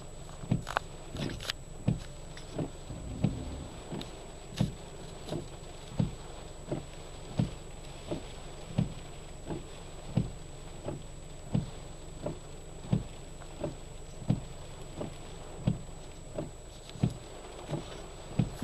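Car windshield wipers sweeping the wet glass, with a knock at each stroke about every 0.7 seconds, over a steady hiss of rain and a low hum.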